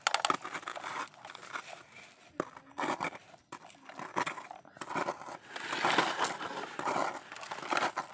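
Small plastic toy trucks handled and pushed through dry, gritty dirt: a run of scrapes, crunches and short clicks. The scraping runs longer and thicker about two-thirds of the way through.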